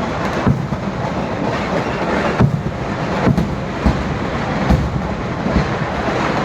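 A fireworks barrage: firecrackers going off in dense, unbroken succession, making a continuous rolling rumble with heavier bangs about once a second.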